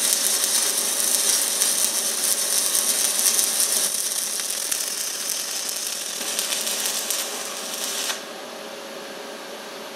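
Stick-welding arc crackling steadily as an electrode runs a fillet weld on a steel lap joint at about 80 amps. It cuts off suddenly about eight seconds in as the arc is broken.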